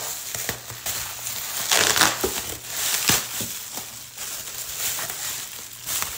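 Silver foil insulated packaging crinkling and crackling as it is pulled open and handled, in irregular bursts that are loudest about two seconds in.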